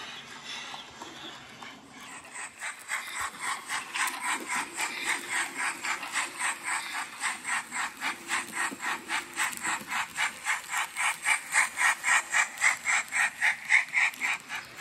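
Model steam locomotive chuffing in a steady rhythm, about three to four chuffs a second, starting about two seconds in and growing louder toward the end.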